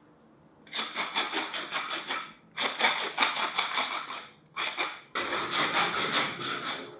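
Pepper mill set to a fine grind, grinding peppercorns in quick rasping strokes of about five a second. The strokes come in four runs with short pauses between them.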